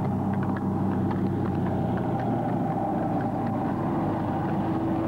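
Heavy truck engine running steadily, its hum shifting in pitch about two seconds in, with a few faint clicks over it.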